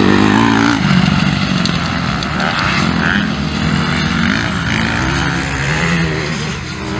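Several motocross bikes running at race pace, their engines revving up and down as they accelerate and back off.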